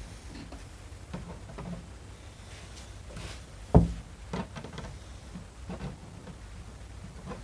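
Scattered knocks and clunks of small parts being handled while a washer and fitting are tried on a plastic diesel fuel tank, with one sharp, louder knock just under four seconds in and a few lighter knocks after it.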